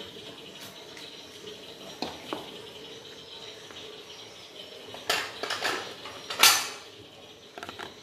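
Ceramic plates and a metal spoon clinking and knocking on the table: two light knocks about two seconds in, then a cluster of clatters with the loudest knock about six and a half seconds in.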